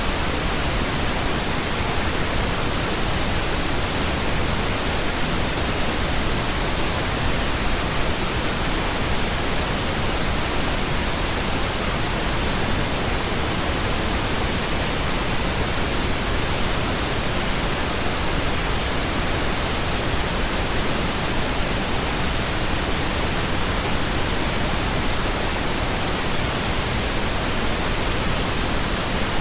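Steady pink noise: an even, unchanging hiss spread across all pitches, with no events.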